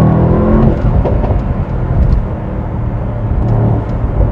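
Mercedes-AMG SL63's twin-turbo V8 accelerating hard, its note climbing in pitch. It breaks off with an upshift under a second in, then pulls on at a lower, rougher note.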